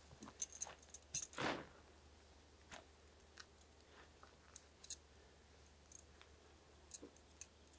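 Small metallic clicks and clinks of tent pegs and a tent pole's foot fitting being handled and set at the base of a tent, with a brief scrape about a second and a half in and scattered single clicks after.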